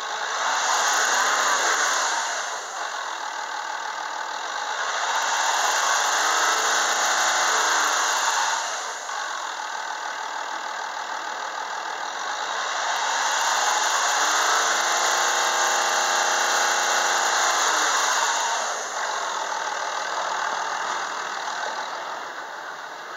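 Land Rover 2.7-litre V6 diesel engine in a Discovery 3, revved with no load three times. Each time the revs rise, hold for a few seconds and fall back to idle. The last rev is the longest.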